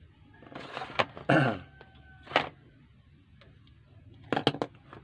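Knocks and clacks of a portable Bluetooth speaker and a digital multimeter being handled and moved on a workbench. There is a scrape and a sharp click about a second in, another knock near the middle, and a quick cluster of clacks near the end.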